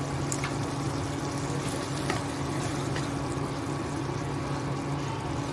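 Potato, cluster-bean and prawn curry simmering and bubbling in a nonstick pan, a steady sound with a low steady hum underneath and a few light clicks of a utensil against the pan.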